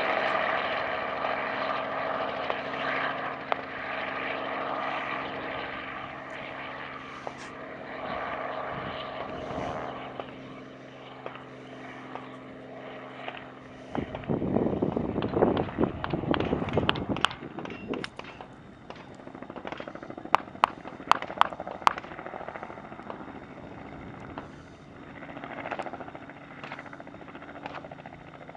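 Helicopter running with a steady drone, followed about halfway through by a few seconds of louder rough rumbling. About two-thirds of the way in comes a quick series of about five sharp cracks.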